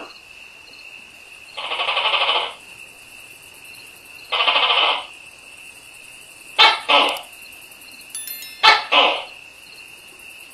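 Tokay gecko calling in a series. First come two buzzy calls, each about a second long. Then come two sharp two-note 'to-kay' calls about two seconds apart, over a steady high insect-like tone.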